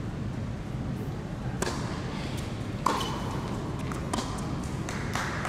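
Tennis ball struck back and forth in a rally, starting with a serve: four sharp pops about a second apart, the second the loudest with a brief ringing ping. A steady low hum runs underneath.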